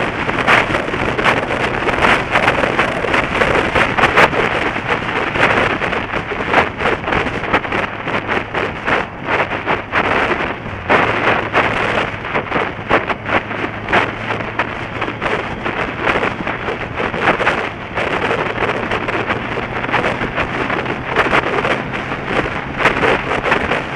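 Motorcycle riding at road speed, with heavy gusty wind buffeting on the microphone over a steady low engine hum.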